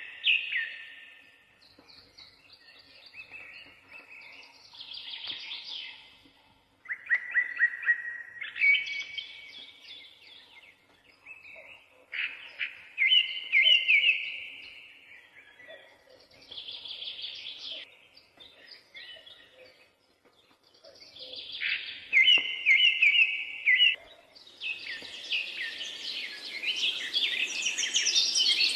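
Birds singing in short chirping and trilled phrases with brief pauses between them. A steady hiss joins about four-fifths of the way through and grows louder under the song.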